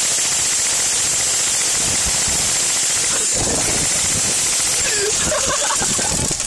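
Airsoft guns firing rapidly in full-auto rattles, a dense stream of clicking shots that thins a little after about three seconds.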